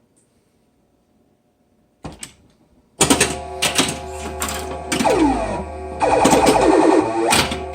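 Williams Flash pinball machine starting a game with its startup sound missing: about two seconds of near silence, a few mechanical clicks, then electronic game sounds come in loudly, with steady tones, repeated falling sweeps and sharp knocks. The missing sound is the sign of a lost signal between the driver board and the sound board, traced to a bad female Molex terminal at pin 1 of the driver board's 2J9 header.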